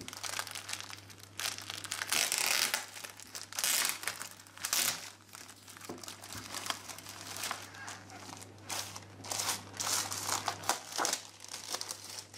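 Thin plastic packaging of a cross-stitch kit crinkling in irregular rustles as it is handled and pulled off the kit.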